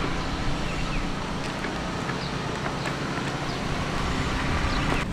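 Steady outdoor background noise of wind and distant road traffic, a low rumble with hiss, with a few faint short high chirps.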